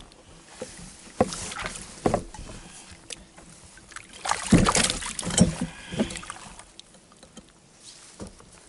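Irregular rustling and sharp knocks from gear being handled aboard an inflatable pontoon boat, loudest about halfway through.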